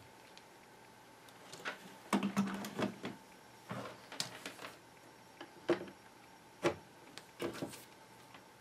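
Light clicks, taps and small knocks of hands handling the plastic case of an HP-55 calculator on the bench, in several short clusters.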